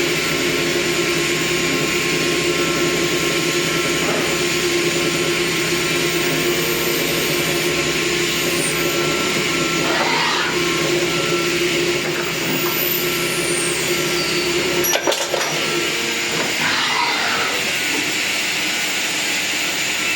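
Rayfeng RC-32 CNC turret lathe running steadily while machining 14 mm brass bar: an even machine hum with several steady tones. A couple of short whines sweep up and down, and there is a single sharp click about three-quarters of the way through.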